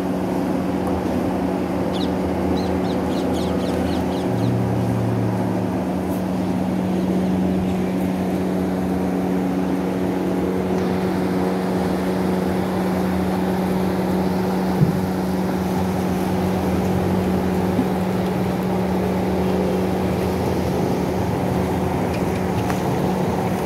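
A machine running with a steady, unchanging hum.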